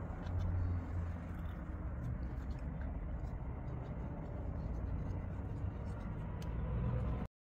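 Steady low background rumble with faint scattered rustles and ticks, cutting off abruptly to silence about seven seconds in.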